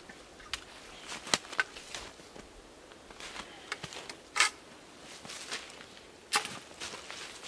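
Irregular sharp snaps and crunches of dry twigs and brush being handled and stepped on in snow and leaf litter, the loudest a little past the middle.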